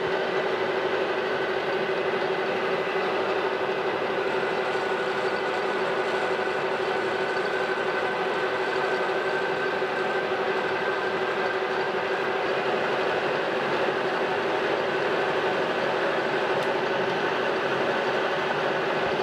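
Metal lathe running while a turning tool takes a pass along brass stock held in a collet chuck, turning it down in diameter. A steady hum with a higher whine over it and a hiss of noise.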